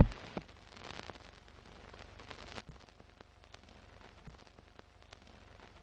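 Faint crackling noise with scattered sharp clicks, trailing off from a loud burst that ends just as it begins.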